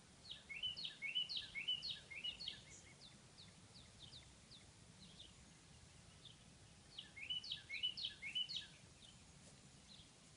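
A songbird singing: two bursts of quick, high chirping notes, the first starting just after the start and lasting about three seconds, the second about seven seconds in, over a faint steady outdoor background.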